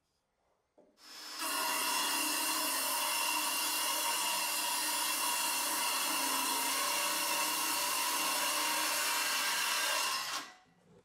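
Homemade circular saw with an old saw blade, driven by a cordless drill, spinning up and cutting through a wooden block. It runs loud and steady for about nine seconds, then stops and winds down.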